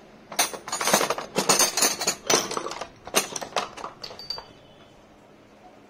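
Loose chrome-steel combination wrenches clinking and rattling against each other in a plastic tool case as they are handled: a quick run of sharp metallic clinks from about half a second in, dying away about four and a half seconds in.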